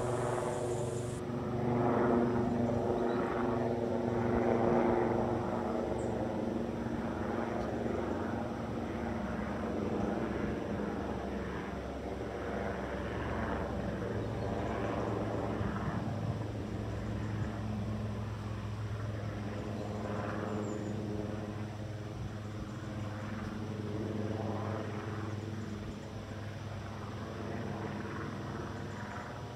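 Steady droning of an engine, easing down slowly over the second half.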